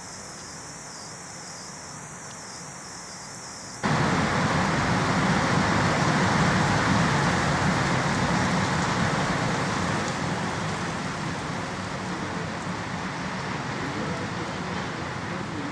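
Steady hiss of falling rain. About four seconds in it suddenly becomes much louder and fuller, then eases off slightly over the last few seconds.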